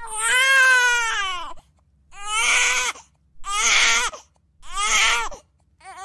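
A cartoon child wailing and sobbing in five cries, each sagging in pitch at the end. The first cry is the longest, then come three shorter ones and a brief last sob. She is crying over being grounded.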